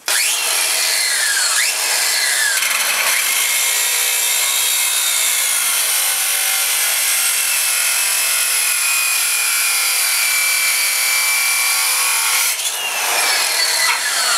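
Angle grinder with a cut-off disc cutting through a steel rod (a tractor steering shaft), a loud, steady whine and hiss of the disc on the metal. Its pitch drops several times as the disc bites into the steel, near the start and again near the end.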